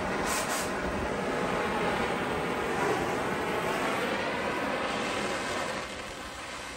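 Oxy-fuel torch with a cutting nozzle, its flame blowing steadily against steel tubing to heat one spot red hot for heat straightening. It gets somewhat quieter near the end.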